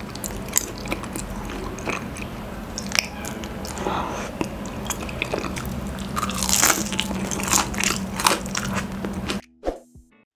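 Close, loud eating sounds: crispy fried chicken breading and honeycomb being bitten and chewed, with many irregular sharp crunches and crackles. The eating cuts off suddenly near the end.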